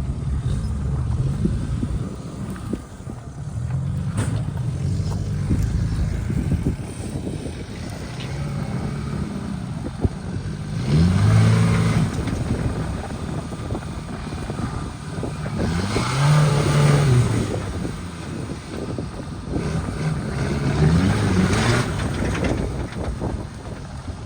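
Off-road vehicle engine revving repeatedly under load, its pitch rising and falling with each throttle blip. The strongest surges come in the second half.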